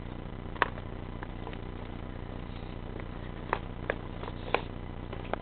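Handheld camcorder noise while walking: a steady low rumble with a few sharp clicks, one just after half a second in and four more between three and a half and five and a half seconds in.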